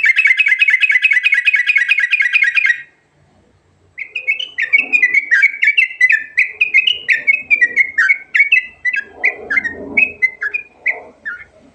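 Yellow-vented bulbul (trucukan) singing: a rapid, buzzy trill for nearly three seconds, then after a short pause a long run of quick, falling chattering notes, about four a second.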